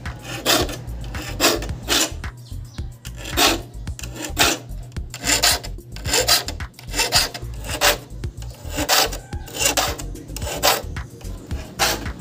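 Triangular file rasping across the steel teeth of a crosscut handsaw in steady back-and-forth strokes, a little more than one a second, as the teeth are sharpened.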